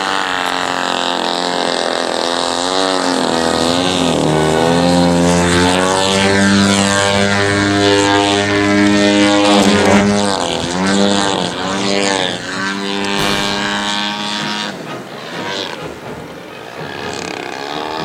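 Large-scale radio-controlled aerobatic airplane's engine and propeller running, the pitch swooping down and back up as the plane makes passes. It is loudest about halfway through, on a low pass, and fades near the end as the plane climbs away.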